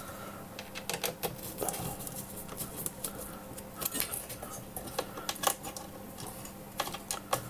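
Small hand screwdriver tightening mounting screws through a computer motherboard: irregular faint clicks and ticks, several a second, as the tool turns in the screw heads.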